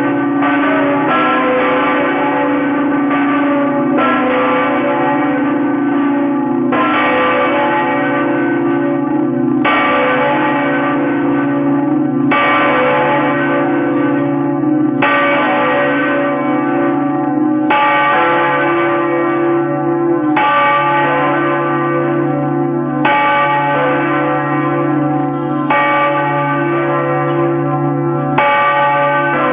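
Church bells of Notre-Dame Cathedral Basilica of Saigon pealing, several bells ringing together over a lingering deep hum. After the first several seconds the strikes settle into an even beat, about one every two and a half to three seconds.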